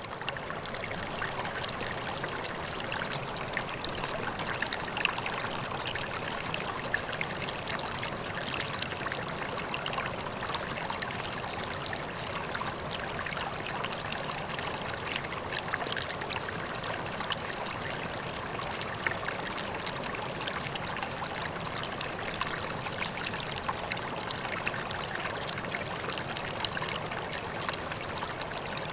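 Koi pond water trickling and splashing steadily, a continuous running-water sound dotted with small splashes.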